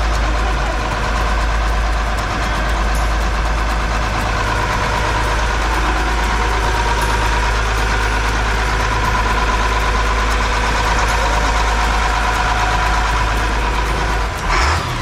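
A 44-foot Sea Ray cruiser's inboard engines idling steadily at the dock, heard from on board, ready for departure. A brief louder rush comes near the end.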